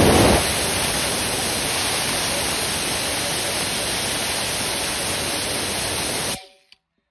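Tire buffing tool spinning its wheel against the rubber inside the tire, roughing up the area around the puncture to prepare it for a patch. It makes a steady, loud rushing noise that cuts off suddenly about six seconds in.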